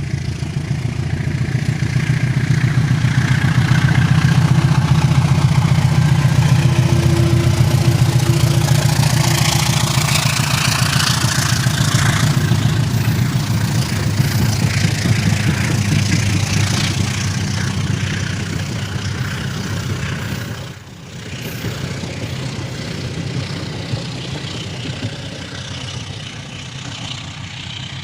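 Diesel-electric locomotive (Indonesian CC 206 class) engine running, with a strong low throb. It swells over the first few seconds, holds, then slowly fades, with a brief dip about three quarters of the way through.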